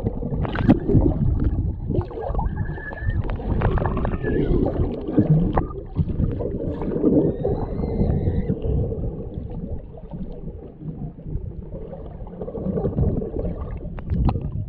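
Muffled underwater sound picked up by a camera below the surface: a continuous low rumble of moving water with gurgling and small knocks. A couple of faint muffled pitched sounds come through, a little after the start and again near the middle.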